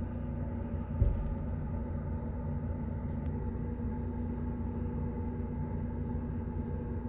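An engine running steadily, with one heavy low thud about a second in: a cut section of cottonwood limb hitting the ground.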